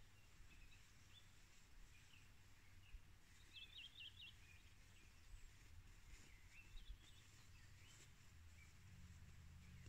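Near silence in a forest, with faint bird chirps: a quick run of about five notes some three and a half seconds in, and another short run near seven seconds.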